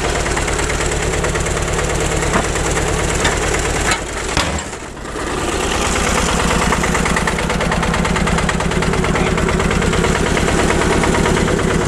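Old tractor engine running with a steady, even chugging. It dips briefly about four seconds in, then picks up again.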